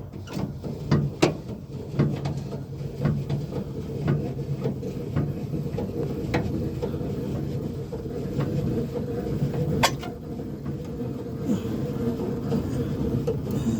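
Spare-tire hoist under a 2002 Dodge Ram 1500 being cranked down with a lowering-tool rod: irregular metal clicks and knocks from the rod and winch, busiest in the first half, with one sharp knock near the end, over a steady low hum.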